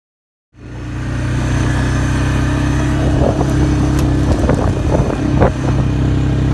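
Motor vehicle engine and road noise, a loud, steady low rumble with a few knocks and rattles, starting abruptly about half a second in.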